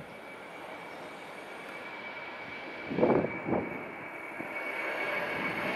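Jet engines of an Airbus A330-300 airliner, Rolls-Royce Trent 700s, growing steadily louder as the aircraft approaches. Two brief louder bursts come about three seconds in.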